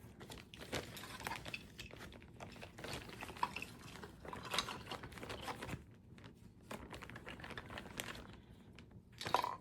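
Plastic bag rustling and crinkling while small ornaments and figurines are packed into it, with scattered light clicks and knocks as they bump together.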